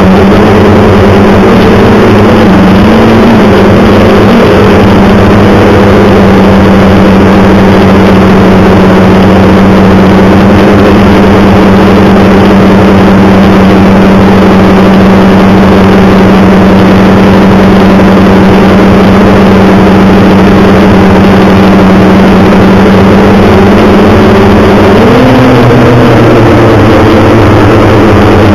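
An engine running at a steady speed, very loud, its pitch wavering briefly a few seconds in and shifting again near the end.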